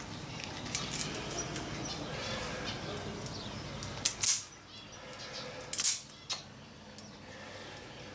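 A few sharp clicks of hand wire strippers being worked on thin electrical wire, about four and six seconds in, over a low steady background.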